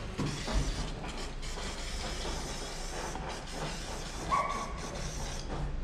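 A steady hiss, with scattered clicks and clanks of a scooter's metal CVT cover being handled. A brief high note sounds about four seconds in.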